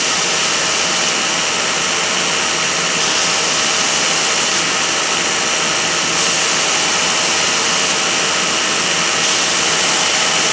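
Grinder running steadily while a small steel hammer head is pressed against the abrasive in four passes of a second or two each, each contact adding a higher hiss: the rounded face being shaped on its diagonals.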